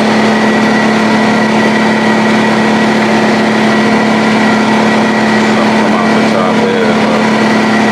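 Electric air compressor running steadily, a constant loud motor hum with a hiss of noise over it.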